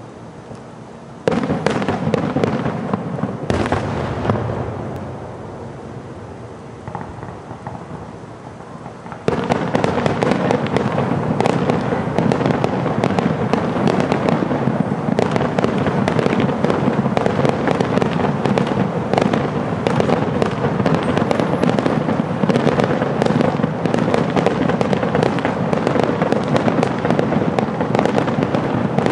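Distant fireworks display: a few shell bursts in the first seconds, then from about nine seconds in a dense, continuous crackle of many rapid reports.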